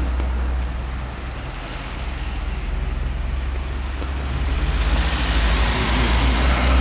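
Road traffic noise: a steady low rumble with a hiss that dips briefly, then grows louder over the last few seconds.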